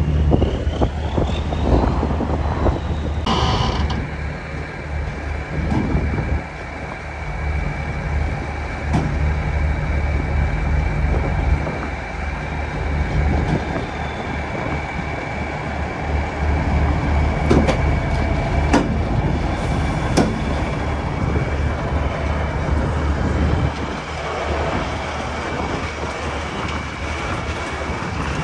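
Heavy diesel engine running steadily with a deep rumble, a faint steady high whine above it, and a few sharp metallic clanks: one about three and a half seconds in, and several between about seventeen and twenty seconds in. The rumble eases slightly a few seconds before the end.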